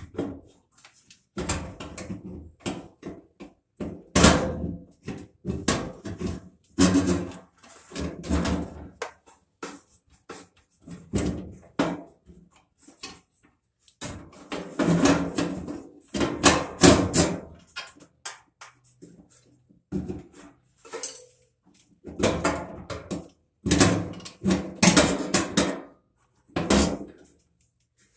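Hands working on the gas valve assembly inside a GE gas dryer's sheet-metal cabinet: irregular clatter, knocks and clicks of metal parts and wire connectors being handled.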